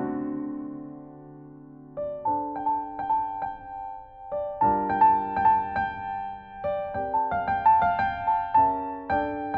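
Background piano music: a sustained chord dies away, then about two seconds in a gentle melody of repeated notes starts over chords.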